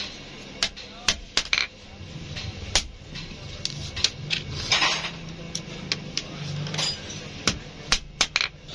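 Sharp metal clicks and taps at irregular intervals as small rivets are handled and fitted into a truck clutch plate's friction lining and tapped with a hammer, with a brief rasp about halfway through.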